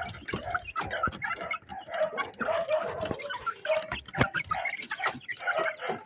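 A group of brown hens clucking softly and continuously while feeding, with many sharp taps of beaks pecking feed off the board floor.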